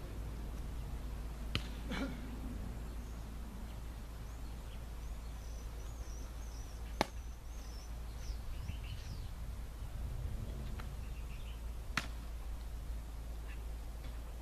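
A football slapping into hands in a game of catch: sharp smacks about two, seven and twelve seconds in, the one near seven seconds the loudest. Faint bird chirps and a steady low rumble sit underneath.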